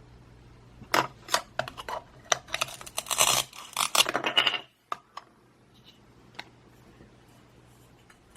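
Velcro-joined toy fruit being cut apart with a plastic toy knife: clacks and taps of plastic with a short scratchy rip of the Velcro, then a few light knocks as the pieces are set down.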